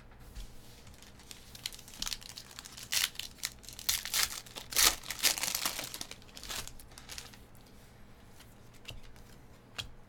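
Foil wrapper of a 2019 Panini Chronicles Baseball pack being torn open and crinkled by hand. The rustling and tearing come in a run of bursts from about two to seven seconds in, loudest in the middle. A few light clicks of the cards follow near the end.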